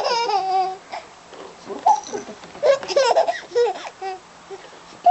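A young child laughing hard in high-pitched bursts: a long squeal at the start, then a run of shorter laughs.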